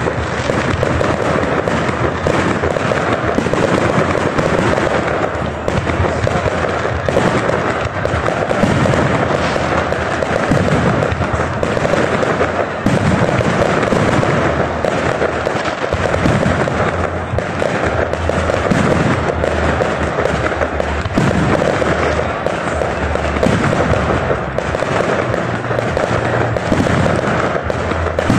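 Aerial fireworks shells bursting in rapid succession, a dense run of bangs and crackle with no pause between them.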